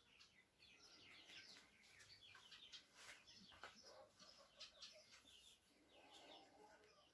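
Faint birdsong: many quick, high chirping notes, with a lower run of short notes joining about four seconds in.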